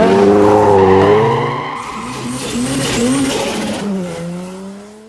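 Racing car engine revving hard with tyres screeching, starting suddenly and loud. About four seconds in, the engine pitch drops and then climbs again before the sound fades out.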